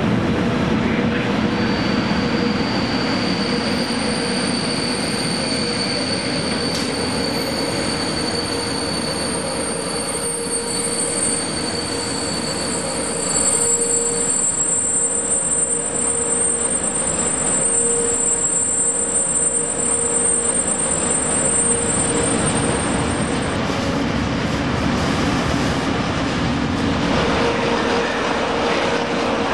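Freight train hauled by an E 652 electric locomotive rolling slowly through a station. A steady, high-pitched wheel squeal rides over the running noise and stops a little after two-thirds of the way through.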